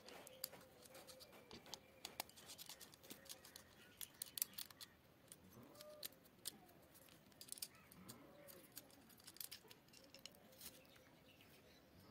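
Near silence broken by faint, scattered clicks and light handling noise as the opened induction cooktop's circuit board, with its aluminium heatsink, and the coil's wires are moved about by hand. The loudest click comes about four and a half seconds in.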